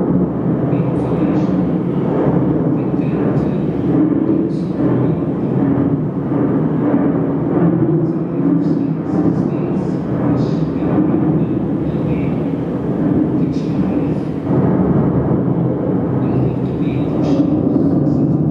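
Soundtrack of a video installation about volcanic landscapes, played over loudspeakers: a steady deep rumble with scattered faint crackles and clicks.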